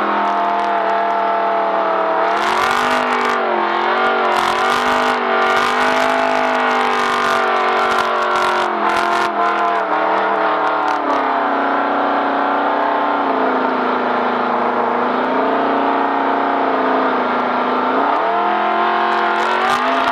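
Vehicle engine running hard at speed, its pitch wavering with the throttle, settling lower about eleven seconds in and climbing again near the end. Rapid sharp knocks and rattles break in over the first half.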